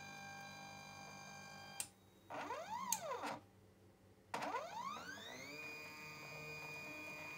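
Stepper motor driving a model-railway traverser's lead screw: a steady whine that stops with a click about two seconds in, then a short move whose whine rises and falls in pitch as the motor ramps up and back down. After a pause, a click and a whine rising in pitch as the motor accelerates, levelling off into a steady high whine at cruising speed.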